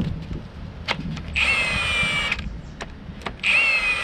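Impact gun run in two bursts of about a second each, spinning out cylinder head bolts on a 4G93 engine that were first broken loose by hand. Each burst is a whine that dips slightly in pitch, with a few sharp knocks before the first.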